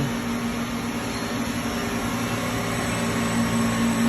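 Haas VF2 CNC vertical machining center running: a steady mechanical noise with a steady low hum tone through it.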